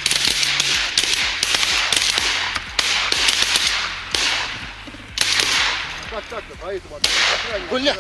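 Shotgun volley at geese: about eight blasts in quick succession, spaced from half a second to two seconds apart, each trailing off. Geese honk over the last two seconds.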